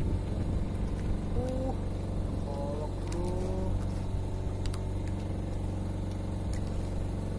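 A small engine running steadily aboard a fishing boat: an even, low drone with no change in speed.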